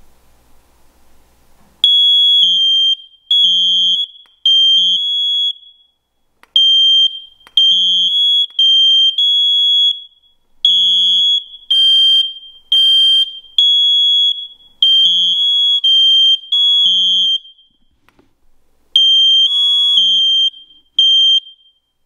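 Two interconnected hardwired First Alert smoke alarms sounding together after one's test button is pressed. Their high-pitched beeps come in groups with short pauses, starting about two seconds in, and the two units are not quite in step.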